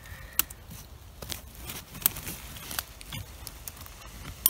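Dry twigs and leaf litter crackling and snapping as a hand pushes through brush under fallen logs: scattered sharp clicks about every half second to second, the loudest near the end.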